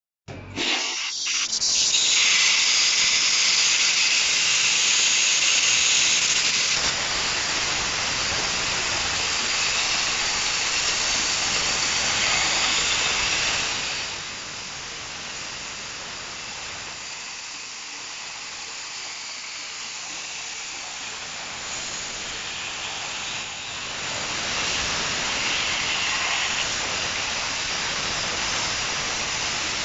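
Dry ice blasting gun hissing steadily as it blasts compressed air and dry ice pellets over an electric motor's fan to clean it. It starts about half a second in, eases off a little about halfway through, and grows louder again several seconds before the end.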